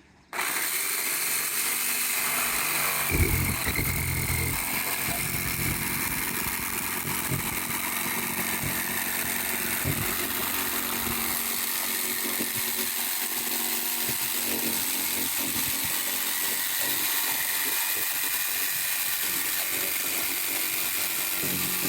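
Jigsaw running steadily as it cuts through a sheet-metal van roof to enlarge the fan opening, with a few heavier knocks as the blade works. It starts abruptly just after the opening.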